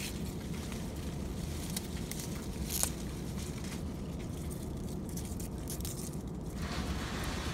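A steady low rumble with a few light clicks and rustles as pepper plant leaves are handled; a hiss comes in near the end.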